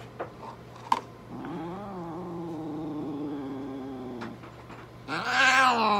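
A mixed-breed cat yowling while held down for syringe feeding: a long, low, drawn-out yowl, then a louder, higher yowl that rises and falls near the end. A sharp click comes about a second in.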